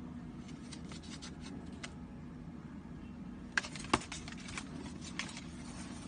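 Foil packaging bags crinkling and a cardboard box being handled: light crackling early on, then a cluster of sharp clicks and knocks, the loudest about four seconds in. A steady low hum underneath.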